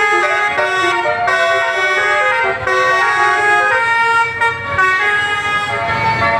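Indonesian 'telolet' bus horn, a set of air-horn trumpets, playing a tune: several tones sounding together and stepping from note to note without a break.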